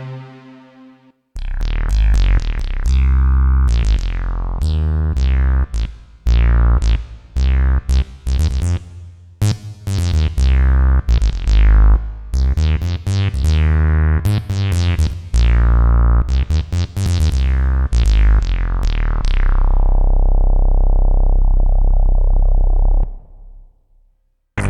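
E-MU Audity 2000 synthesizer module playing a deep bass riff. Each note starts bright and quickly turns dark. It begins after about a second of silence and ends on a long held low note that fades away.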